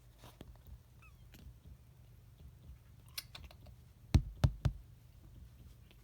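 Faint clicks and rustles over a low steady hum, then three loud, quick thumps in a row about four seconds in.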